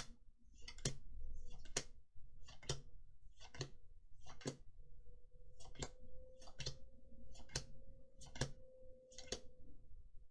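Magic: The Gathering cards dealt one at a time onto a pile: a short slide and a sharp snap just under once a second, about eleven times, with a brief pause near the middle.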